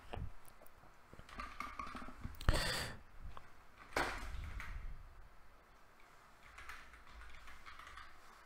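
Faint, scattered keystrokes on a computer keyboard, a few separate clicks with short gaps between.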